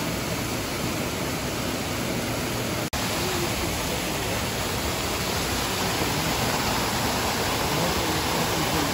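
Steady rush of falling water from the elephant pool's waterfalls and fountain. It breaks off for an instant about three seconds in.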